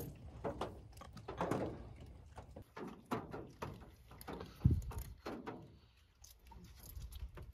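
Handling noise in a small room: scattered light clicks and knocks, with one louder thump about four and a half seconds in.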